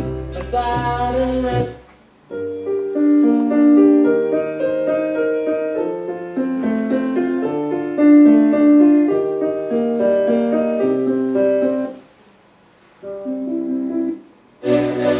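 Piano music playing, with two short breaks where it drops out; near the end a different, fuller piece starts.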